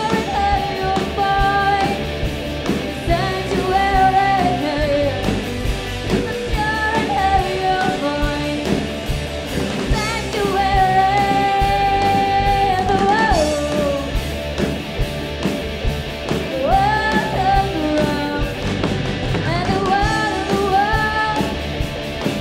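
A live rock band playing: a woman singing lead over electric guitars, bass guitar and drums. Partway through she holds one long note, which then slides down.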